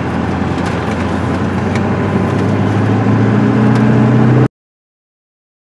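Pickup truck engine and road noise heard from inside the cab while driving, a steady low drone that grows gradually louder, then cuts off abruptly near the end.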